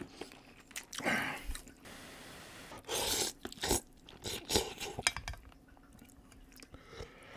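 A person eating instant ramen noodles close to the microphone: two noisy slurps, about a second in and about three seconds in, with chewing between them and a few short clicks of metal chopsticks against the steel pot.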